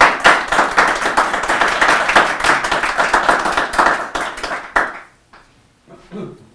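Audience applauding, a dense patter of many hands that stops about five seconds in.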